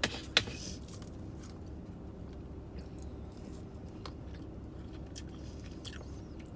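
A person chewing food close to the microphone, with scattered soft mouth clicks and smacks, over a low steady hum.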